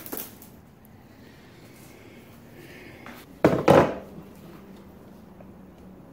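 A removed jet-ski throttle cable is tossed onto a concrete floor and lands with a brief clatter. About three and a half seconds in comes a louder, half-second knock and rattle of handling.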